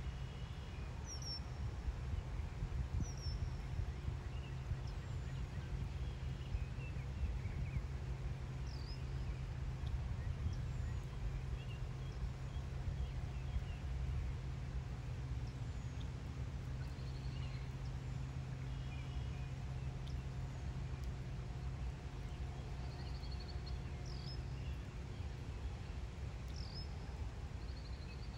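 Marsh ambience in light spring rain: scattered short bird chirps and calls over the faint patter of rain on the water, with a low steady rumble underneath.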